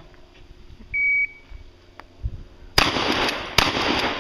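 Shot timer's start beep, one short high tone about a second in, then gunshots from a long gun fired at steel targets: two shots near the end, a little under a second apart.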